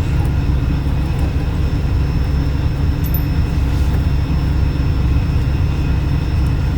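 Steady, loud low machine drone with a constant hum, unchanging throughout.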